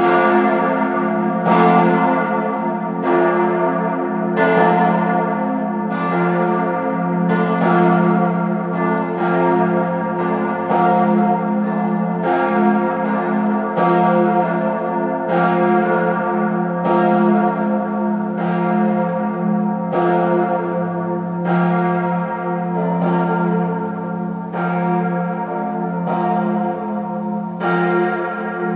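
Church bells of the reformed town church's 1904 Rüetschi peal, large bells tuned to an F-major chord (F° A° c' f'), swinging and ringing together. Their strokes overlap, one about every second and a half, over a steady deep hum from the big bells.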